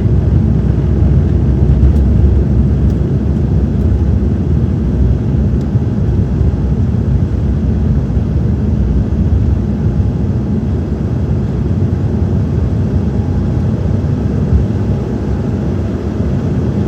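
Embraer 195-E2's Pratt & Whitney PW1900G geared turbofans at high thrust just after takeoff, heard from inside the cabin as a loud, steady low roar with airflow noise. The roar eases slightly toward the end.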